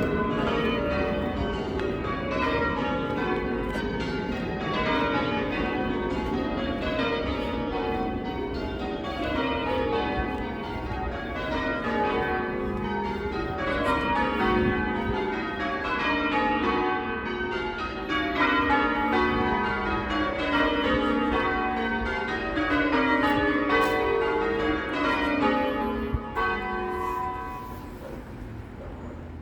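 Ring of eight church bells, most of them cast in 1694 by Philip Wightman, being change rung: full-circle strikes follow one another steadily in rows that step down from treble to tenor. The ring has a tone the ringer calls a tad shrill and dry, and it fades out near the end.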